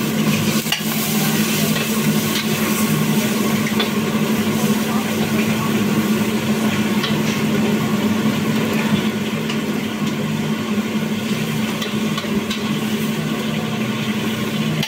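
Pad Thai noodles, prawns and other ingredients sizzling as they fry in a carbon-steel wok over a gas burner. A metal spatula scrapes and clinks against the wok now and then as the food is tossed, over a steady low hum.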